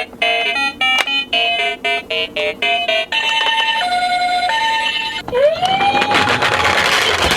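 Electronic emergency-vehicle siren sounds. First a quick run of short beeping notes, then a two-tone hi-lo siren. About five seconds in, a wailing siren rises in pitch and holds over a rushing noise with clicks.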